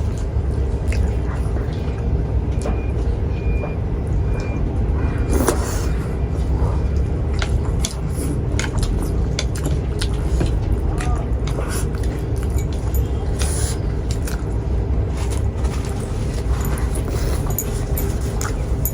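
Scattered light clicks and taps of chopsticks on plates while eating, over a steady low background rumble.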